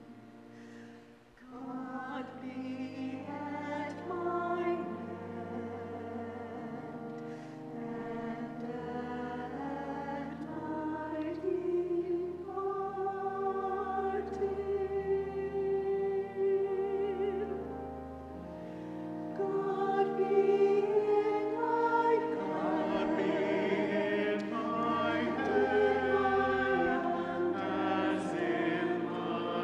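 Mixed church choir singing a slow anthem in sustained notes over steady pipe organ chords and low pedal notes. The singing starts after a brief pause near the start and grows louder about two-thirds of the way through.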